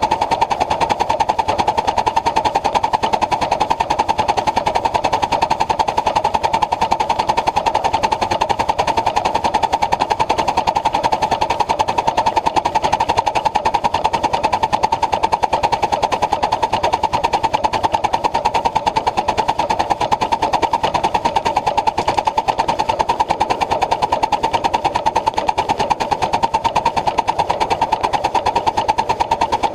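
Ride-on live-steam Pacific locomotive running with its passenger train: a fast, steady, unbroken clatter heard from on board.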